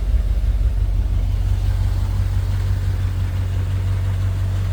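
1966 Chevrolet C10 pickup's engine idling steadily.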